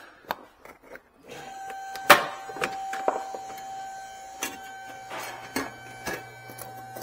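Knocks, clicks and scrapes of a car's plastic wheel-arch liner being pulled and worked loose by hand, the strongest knock about two seconds in. Under them a steady mechanical hum with a clear tone starts a little over a second in.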